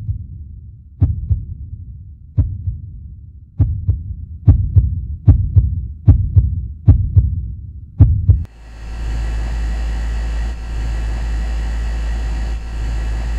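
Heartbeat sound effect: deep thumps in lub-dub pairs, quickening. About eight seconds in they give way to a steady droning tone.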